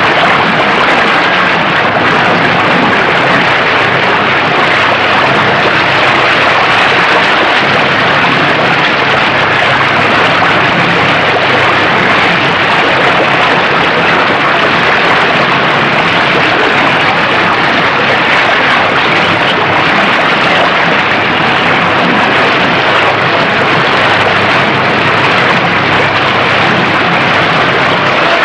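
Steady rush of fast-flowing mountain river water, a loud even noise that does not let up.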